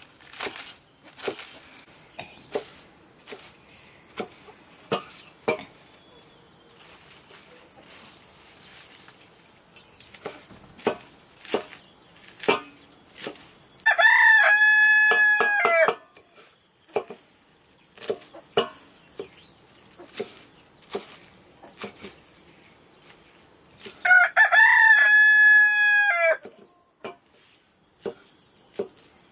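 Leafy greens being cut on a curved sickle-style blade over a metal bowl, with a sharp cut about once a second. A rooster crows loudly twice, once midway and again about ten seconds later, each crow about two seconds long.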